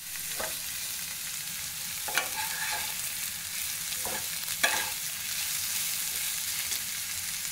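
Julienned capsicum, carrot and onion sizzling steadily in hot oil in a nonstick wok while a steel spatula stirs them. The spatula scrapes the pan a few times, most loudly about two seconds in and again a little past halfway.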